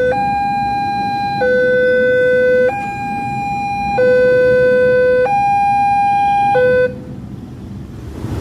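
Railway level-crossing warning siren sounding a two-tone high-low alternation, switching between two steady pitches about every 1.3 seconds, then cutting off about seven seconds in.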